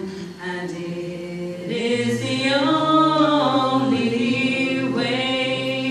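A woman singing a slow song, holding long notes that slide between pitches.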